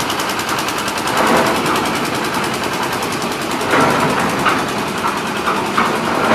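Concrete mixer's engine running steadily with a rapid, even clatter, rising a little louder a few times.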